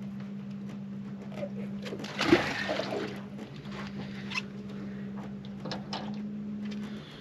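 A released catfish hitting the water and splashing, with one loud splash about two seconds in and a few smaller splashes after, over a steady low hum.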